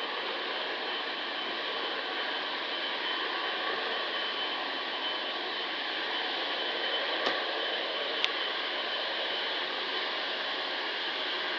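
Twin-engine widebody jet airliner's engines at takeoff thrust during the takeoff roll, a steady rushing jet noise with a faint high whine running through it. Two short clicks come about seven and eight seconds in.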